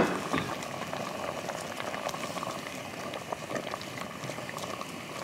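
Pot of doenjang soup with chamnamul and fried tofu pouches simmering on a gas burner: a steady bubbling with small pops. There is one sharp click at the very start.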